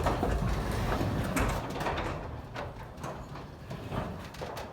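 Garage door, released from its opener, being moved by hand: a heavy rumbling and rattling along its tracks that eases off in the second half.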